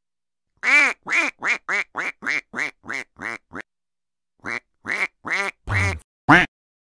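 A duck quacking: a quick run of about a dozen nasal quacks that fade as they go, then after a pause of about a second, five more, the last one the loudest.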